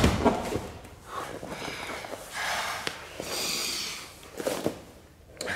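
A heavy thud as a man comes down from a handstand onto a matted floor, then two long, heavy breaths as he gets his breath back from the handstand effort.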